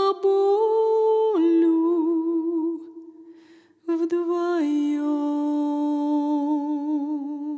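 A woman's voice singing a wordless melody in long held notes with vibrato. It steps down in pitch about a second and a half in and fades out around three seconds in. It comes back just before four seconds and settles on a long, lower note that wavers to the end.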